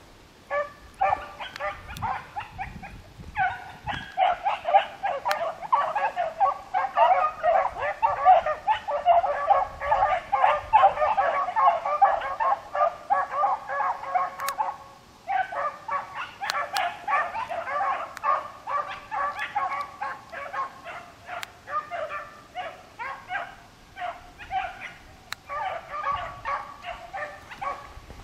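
A pack of beagles baying while running a rabbit by scent: several hounds give tongue at once in a continuous, overlapping chorus. The chorus breaks off briefly about three seconds in and again about halfway through.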